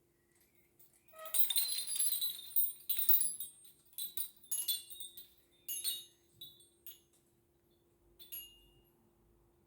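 Wind chimes ringing: a dense cluster of bright, high tinkling strikes starting about a second in, thinning into scattered single tings, with a last one near the end.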